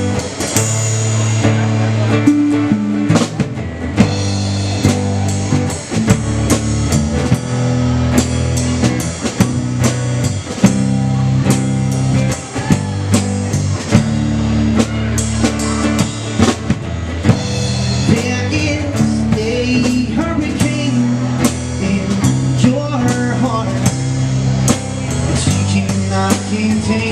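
Live band playing a rock song: a drum kit keeping a steady beat under guitar chords.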